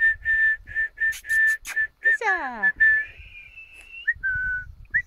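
A person whistling to call dogs: a quick run of short notes at one pitch, broken by a brief sweep that falls in pitch, then a longer held note and a few more short notes. A few sharp clicks come about a second in.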